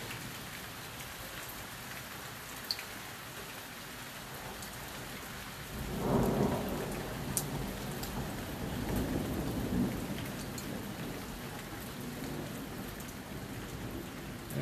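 Steady rain falling, with a roll of thunder that swells up about six seconds in, rumbles for several seconds and fades away.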